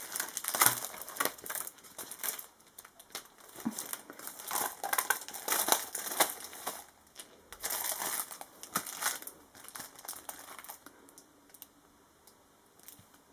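Clear plastic packaging crinkling irregularly as a package is unwrapped and its contents slid out by hand, fading away over the last couple of seconds.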